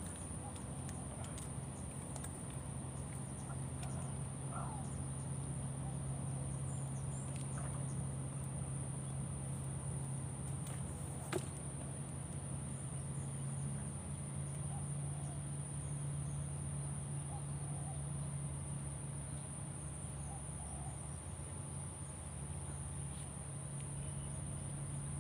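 Insects drone steadily at a high pitch over a low, steady hum. About eleven seconds in there is a single sharp click.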